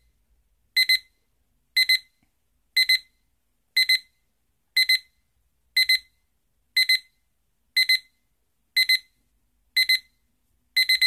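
BestGot digital alarm clock's alarm beeping: short groups of quick high-pitched beeps repeating about once a second. This is the clock's gradual alarm, which starts at one level and steps up in intensity.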